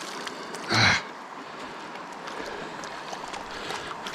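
Steady rush of flowing river water, with one short, loud burst of noise a little under a second in.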